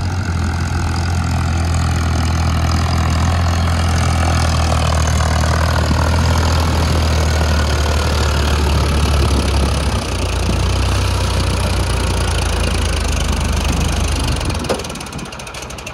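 Farmtrac 50 tractor's diesel engine labouring under a full trolley of sand on a climb, its pitch sagging. It stalls and cuts out near the end.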